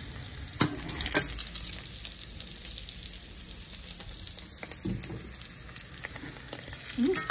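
Sausage links sizzling in hot grease in a stainless steel frying pan, with a few clicks and scrapes of a metal spatula turning them in the first second or so.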